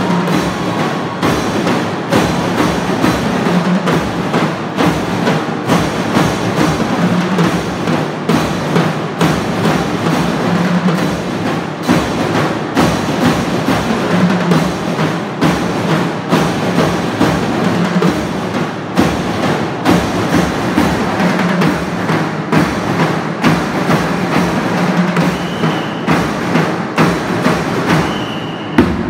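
School marching band drum line playing a steady, driving marching beat on snare and bass drums, with dense, evenly spaced strokes.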